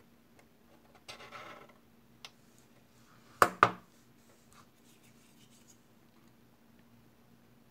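A short scraping rub of a metal hand tool on a plastic model's surface about a second in, then two sharp clacks a quarter second apart as the metal tool is set down on the desk, followed by faint handling noise.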